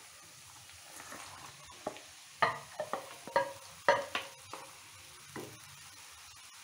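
A wooden spatula scrapes and knocks boiled chana dal out of a steel bowl into a hot kadai: a run of sharp taps with a short metallic ring, mostly in the middle seconds, over a faint sizzle of the pan.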